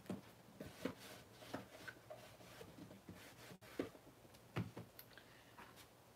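Faint handling sounds of a paper-covered cardboard box being turned over in the hands and set down on a wooden tabletop: a few scattered light taps and paper rustles.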